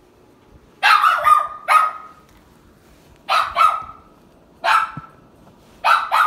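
Pet dog barking repeatedly, about eight barks in short groups of one to three, the groups spaced a second or so apart.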